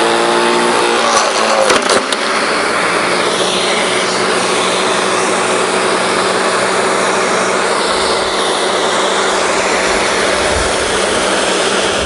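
Electric garden shredder's motor running steadily. In the first two seconds a branch is chewed through with sharp cracks and a wavering motor note, then it runs evenly with no load.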